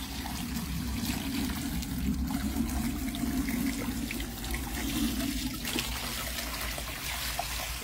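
Water poured from a bucket in a steady stream into the empty reservoir of a plastic self-watering planter, splashing onto the perforated separator plate and filling the chamber below.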